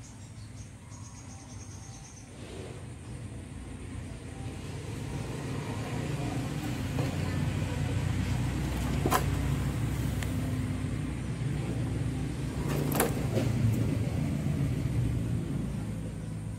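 Low rumble of a passing motor vehicle, growing louder over several seconds and fading near the end, with two sharp clicks partway through.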